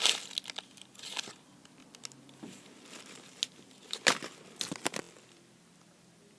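Rustling and crinkling as squishy toys are handled, in irregular short bursts that die away about five seconds in.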